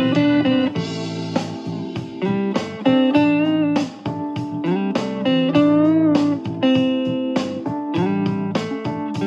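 Improvised blues guitar solo in the A minor pentatonic scale: a run of single-note phrases with string bends and vibrato, over sustained low notes.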